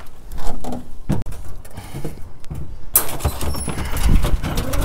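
Metal wire dog crates rattling and knocking as dogs are let out, with paws scrambling on the pickup bed. A denser burst of rattling starts about three seconds in.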